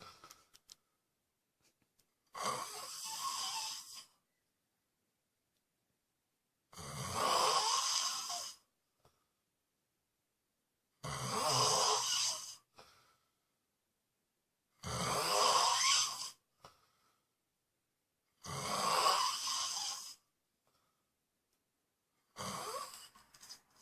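A person snoring in a regular rhythm: one long snore about every four seconds, each lasting about a second and a half, with silence in between. There are six snores, the last starting near the end.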